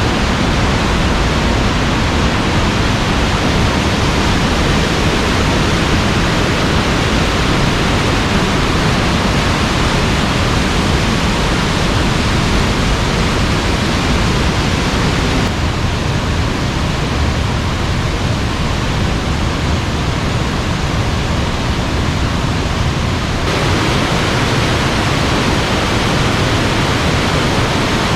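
The Hermon Stream (Banias stream) rushing loudly through a narrow gorge as steady whitewater, running high and fast after recent rainfall. It softens slightly for several seconds past the middle, then returns to full strength.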